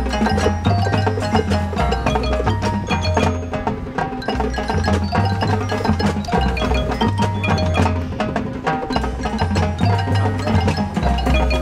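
Marching band playing, with the front ensemble's marimbas and other mallet percussion prominent: quick struck notes over a low bass part that changes pitch about once a second.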